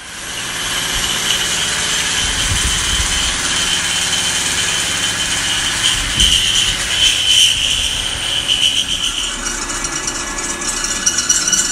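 Carlton radial drill press running with a steady high whine. Near the end the whine gives way to a rattling chatter as the bit cuts into a steel flat bar.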